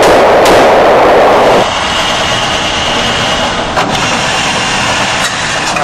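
Taurus 605 .357 Magnum snub-nose revolver fired, a sharp shot about half a second in, amid loud noise that drops off suddenly about a second and a half in. After that comes steadier, lower noise with a few faint clicks.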